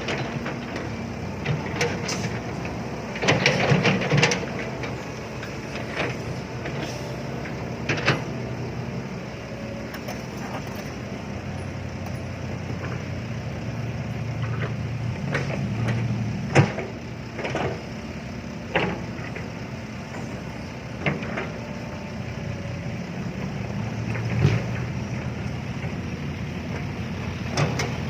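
Heavy diesel engine running steadily, swelling now and then, with scattered sharp knocks and clanks.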